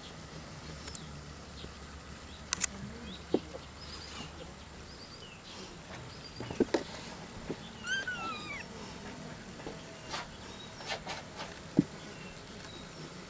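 A kitten mews once, a short falling call about eight seconds in. Scattered sharp clicks and scuffs come from its play-fighting with a hand.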